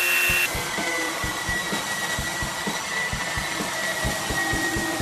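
Power sanders working cedar with a steady whine: an edge belt sander for about the first half second, then a Ridgid random orbit sander, whose whine sits a little lower, with a regular low thumping underneath.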